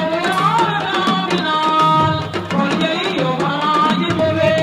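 Music of hand drums with a singing voice over them; the voice holds a long note near the end.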